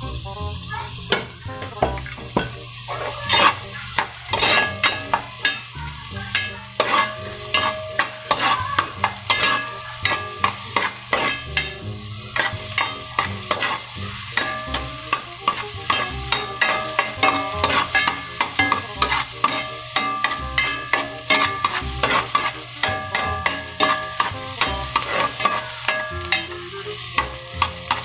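Diced onions sizzling in hot oil in an aluminium pot as a metal ladle stirs them, scraping and clinking against the pot many times in quick, irregular strokes. The onions are being sautéed until they turn translucent.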